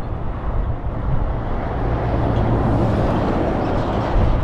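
Vehicle driving along a road: steady road and engine noise, a low rumble with a rushing noise above it, swelling slightly about three seconds in.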